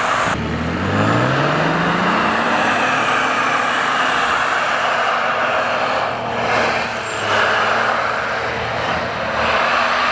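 Toyota Land Cruiser 80's engine revving up under load, its pitch climbing over about two seconds and then held high, as it pulls a stuck pickup out of deep snow on a dynamic tow strap. A steady rush of tyres churning through snow runs under it.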